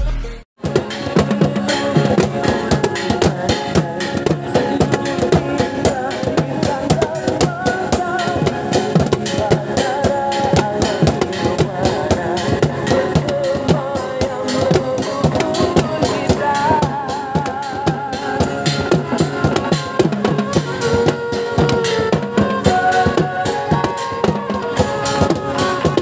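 Background music with a steady drum beat and melodic instruments.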